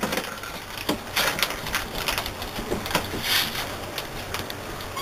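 Puppies scuffling and tussling on a soft blanket: an irregular run of soft knocks, scrapes and rustles, with a brief higher-pitched sound a little over three seconds in.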